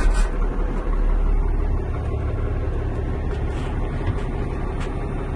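Truck diesel engine just started, settling from the start into a steady idle rumble, with a few faint clicks near the end.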